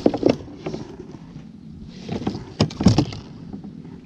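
A long-handled dip net knocking and clattering against a small fibreglass boat as fish are scooped up, with water splashing; a few sharp knocks, the loudest about three seconds in.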